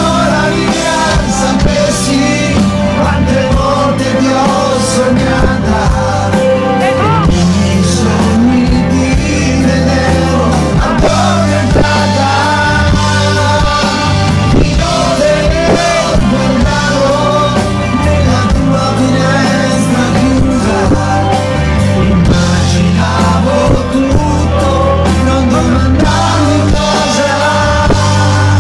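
Live pop band playing loudly, with keyboard, percussion and electric guitar under a male singer's voice.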